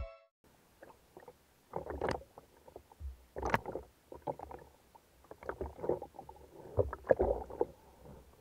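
Water sloshing and splashing at the surface around a swimming spearfisherman, in irregular splashes with a couple of sharper ones about two seconds and three and a half seconds in.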